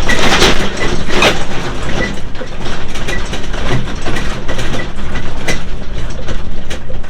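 Loud mechanical clatter: a steady noisy rumble with many irregular sharp knocks and rattles.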